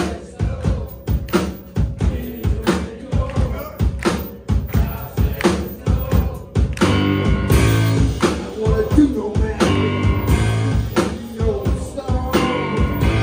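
Live rock and roll band playing: a drum kit keeps a steady beat under electric guitar, and about halfway through the band comes in fuller and louder with sustained chords.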